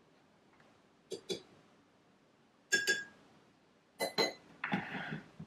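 Ceramic coffee mugs and a metal teaspoon clinking on a kitchen worktop: three pairs of short sharp clinks, some with a brief ring, then a short scuffing clatter near the end.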